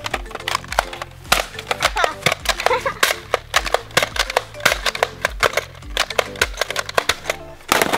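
Background music with a steady beat, a repeating bass line and many sharp percussive hits.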